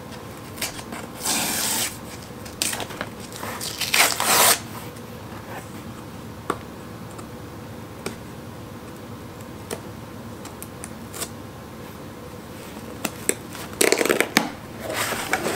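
Hands picking at and peeling tape and a tear strip from a corrugated cardboard shipping box: scattered scratchy rips and scrapes, with a longer, denser stretch of tearing near the end.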